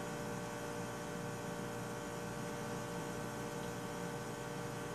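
Steady electrical hum with several fixed tones over a faint hiss: room tone.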